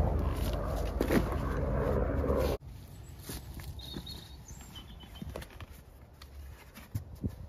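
Low wind rumble on the microphone, cut off suddenly after about two and a half seconds. Then a quieter stretch of footsteps on dry leaf litter and camping gear being handled: scattered light knocks and rustles, with a faint bird chirp.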